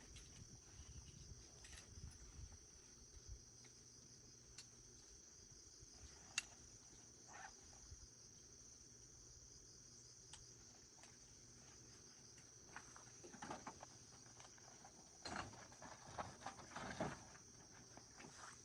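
Near silence: a faint steady high-pitched tone with scattered faint clicks, and a few soft knocks and rustles near the end.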